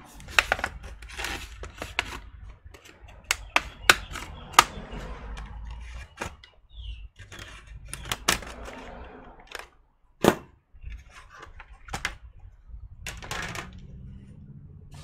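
Plastic clips of a laptop's bottom cover clicking loose one after another as the panel is pried off by hand, with scraping and rattling of the plastic case in between. The sharpest click comes about ten seconds in.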